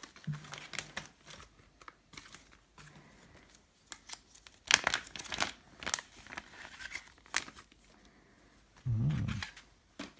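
Crinkling and rustling of a clear plastic zip-lock bag and a white Dyneema (DCF) stuff sack being handled and pulled apart, in sharp irregular bursts that are loudest about halfway through. Near the end there is a brief low hum from a person.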